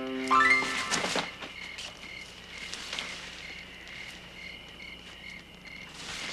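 Crickets chirping in a steady, regular pulse through a night-time ambience. About half a second in, a held music chord stops with a short, loud rising whoosh.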